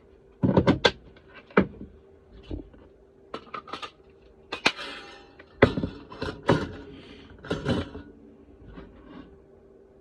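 Tools and small hard objects being picked up and set down on a workbench: a series of sharp clicks and knocks, with a brief scrape about halfway through, over a faint steady hum.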